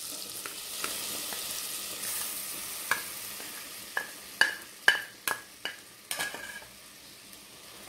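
Butter sizzling in an aluminium saucepan as flour is poured into it to start a roux, with a string of sharp, briefly ringing clicks about halfway through.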